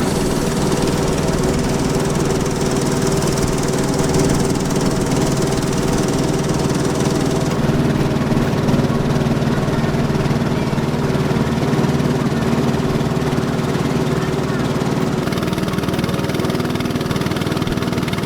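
A small passenger boat's engine running steadily while under way across the river, a constant, even drone.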